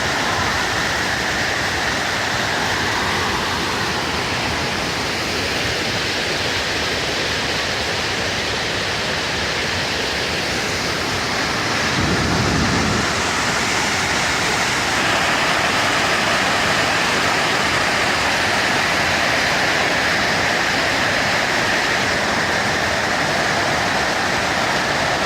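Waterfall: a steady, even rush of falling water, with a brief low rumble about halfway through.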